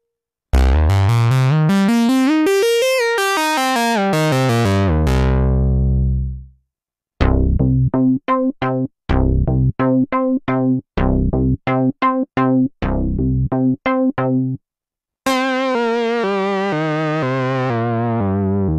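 Sequential Pro 3 analog synthesizer playing. First a held sound sweeps up in brightness and back down, then fades out. Then comes a run of short detached notes, about two a second, and near the end a held sound that changes in steps.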